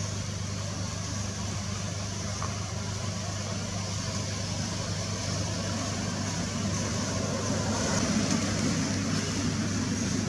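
Steady low mechanical hum, like an engine idling, over a constant background hiss; it grows a little louder from about six seconds in.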